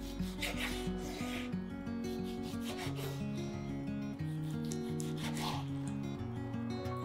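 A ceramic kitchen knife slicing through raw chicken breast onto a wooden cutting board, a few separate scraping strokes, over soft acoustic guitar music.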